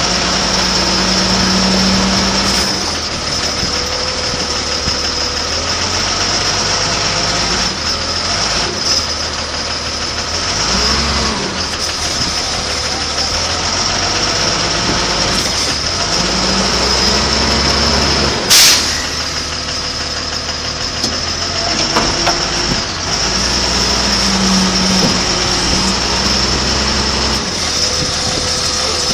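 A large engine running, its speed rising and falling several times, with a steady high whine over it. A single sharp knock about two-thirds of the way through.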